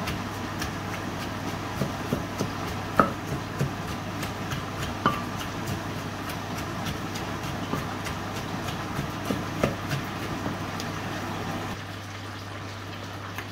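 Wooden pestle pounding and stirring papaya salad in a terracotta mortar: irregular dull thuds with an occasional sharper knock, stopping about twelve seconds in.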